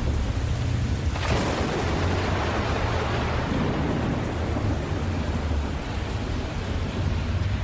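Steady rain with a constant low rumble of thunder. About a second in, a sharp thunderclap cracks and then rolls away over several seconds.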